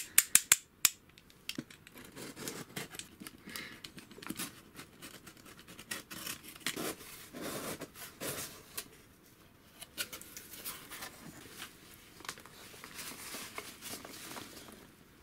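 A few sharp clicks at the start, then a box cutter slitting the packing tape on a cardboard box, the cardboard flaps scraping open and hands rustling through loose packing peanuts.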